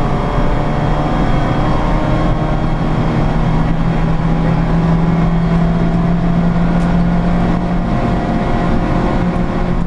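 Seat Ibiza 1.8T's turbocharged four-cylinder engine running hard under load, heard from inside the car's cabin. The engine note holds fairly steady and shifts in pitch about eight seconds in.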